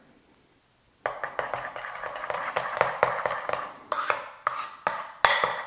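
Metal spoon stirring batter in a glass bowl, clinking and scraping against the glass in quick repeated taps, starting about a second in. One sharper clink comes near the end.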